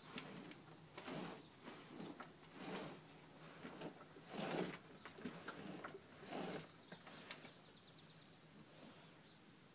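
A horse rubbing its neck and chest against a wheelbarrow's rim to scratch itself, making irregular scraping and rubbing noises about once a second that die down near the end.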